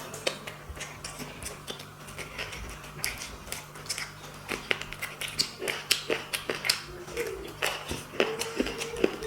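Eating sounds: rice and curry being chewed, with many quick wet mouth clicks and smacks, over a steady low hum.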